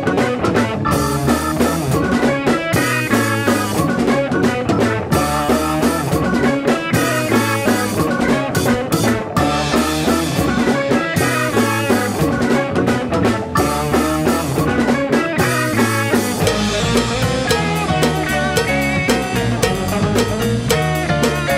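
Live rock band playing: a drum kit, electric bass and electric guitar together in a jam-band style groove.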